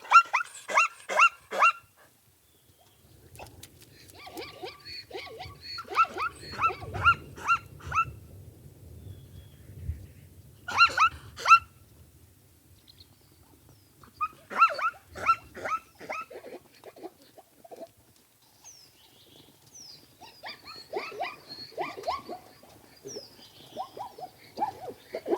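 Baby zebra calling: runs of four to eight quick, high yelping calls, each run lasting about two seconds, repeated several times with short pauses between them. A low rumble sits beneath the middle runs.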